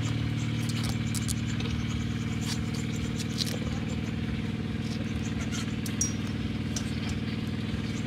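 An engine idling at a steady, unchanging speed, with a few faint crackles of banana leaves being folded.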